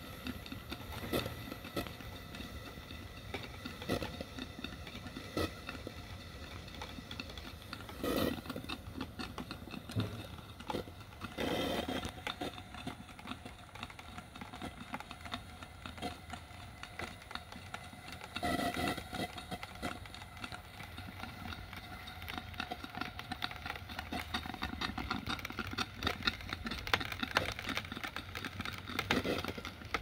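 Coal-fired Stuart James Coombes model steam engine running, a quick, even mechanical clatter, with a few louder bursts along the way.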